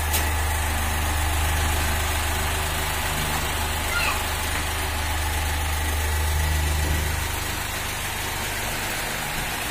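Repaired Astron 18-inch stand fan running quietly, its motor giving a steady low hum over a soft rush of air, now fitted with a new shaft, bushing, spacer and capacitor. A short click comes just after the start, and the hum dies away about three-quarters of the way through.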